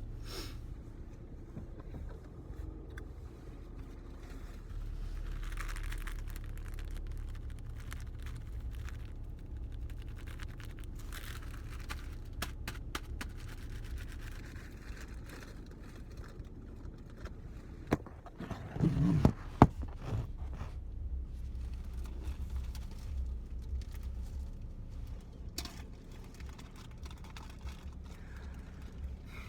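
Steady low hum inside a car cabin, with small scraping and rustling handling noises and a short cluster of loud bumps about two-thirds of the way through.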